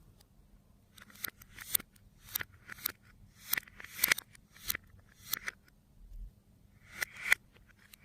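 Slime being worked by hand: a series of short, sticky pops and crackles, about two a second, pausing briefly around six seconds in.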